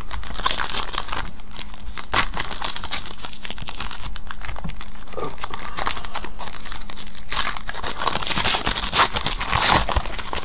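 Foil wrapper of a 2015 Panini Prizm Collegiate Draft Picks football card pack being torn open and crinkled by hand, a dense crackle with small snaps, heaviest at the start and again near the end.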